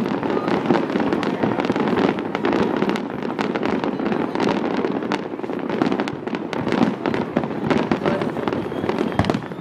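Aerial fireworks display: shells bursting in a dense, continuous barrage, many sharp bangs and crackles in quick succession over an unbroken low rumble.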